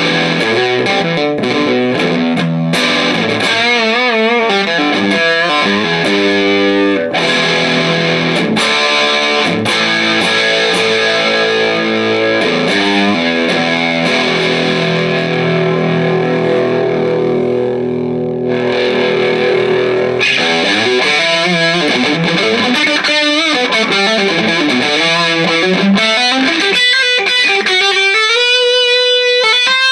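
Distorted electric guitar played through a Marshall 5210 solid-state combo amplifier: a lead line with bent, wavering notes, long held notes in the middle, and quick rising runs near the end.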